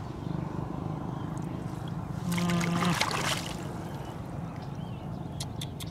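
Hands sloshing and splashing in muddy water while groping in a flooded hole for a fish, with a louder splash about two and a half seconds in as the fish is pulled out, and a few sharp clicks near the end.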